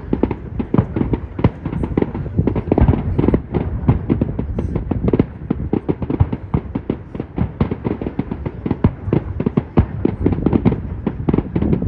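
Fireworks display going off in a rapid, continuous barrage of bangs and crackles, many per second with no let-up.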